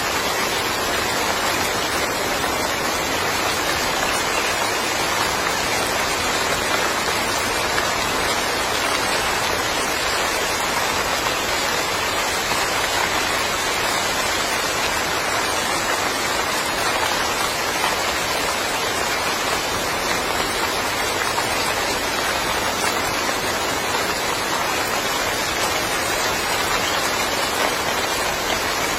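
Steady rain falling and pattering on surfaces in a yard, an even hiss with no pauses or changes in strength.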